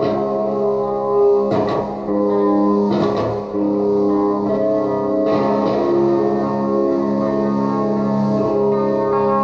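Electric guitar through an Orange amplifier playing a psychedelic noise loop: layered chords and held notes ringing over a sustained drone, with a few strummed attacks in the first half.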